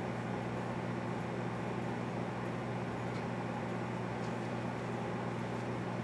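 Microwave oven running: a steady hum from the transformer and magnetron with the whir of its fan.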